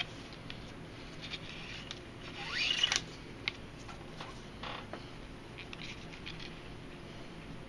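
Nylon paracord being pulled tight through a knot: faint rustling and ticking of cord handling, with one louder rising squeaky scrape about three seconds in as the cord is drawn through.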